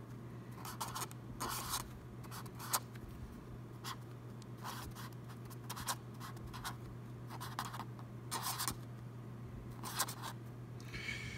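Felt-tip pen writing on lined notepad paper: a run of short, irregular scratchy strokes. A steady low hum runs underneath.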